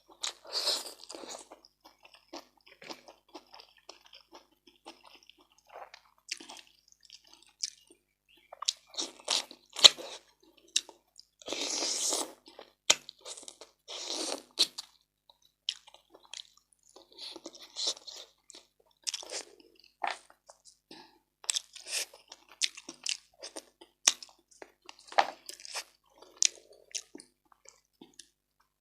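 A person eating close to the microphone: irregular chewing and crunching with short wet clicks, and a longer noisy burst about twelve seconds in.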